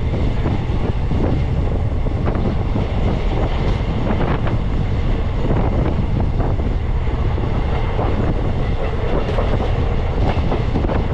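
Indian Railways sleeper coach running at speed, heard from the coach: a steady rumble of wheels on rail, broken by scattered clicks as the wheels cross rail joints.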